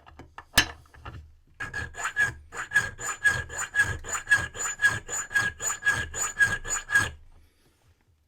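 Hand file rasping across a brass key blank in quick, even strokes, about four a second, each with a slight metallic ring: the filing of marks in key impressioning. A single sharp click comes just before the strokes begin, and the filing stops about seven seconds in.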